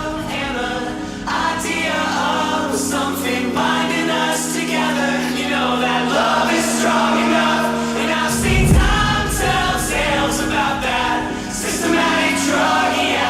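Electronic dance music with choir-like sung vocals over long held bass notes and regular high ticks. A deep bass hit lands about eight seconds in.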